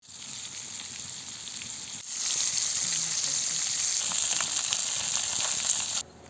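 Fish frying in hot oil: a steady sizzle with crackling pops. It gets louder about two seconds in and cuts off suddenly near the end.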